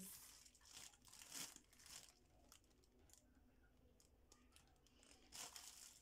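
Faint crinkling and rustling of plastic grocery wrapping being handled: a few short rustles in the first two seconds, a quiet stretch, then another rustle near the end.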